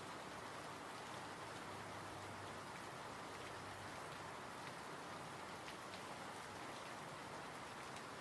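Steady, even rain falling, a soft continuous patter with faint scattered drop ticks.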